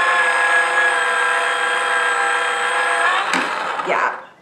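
Small electric motor of a toy pottery wheel running with a steady whine and a gear-like buzz. A little over three seconds in there is a click, and the motor winds down and stops.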